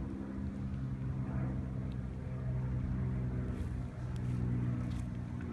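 Steady low motor drone holding a near-constant pitch.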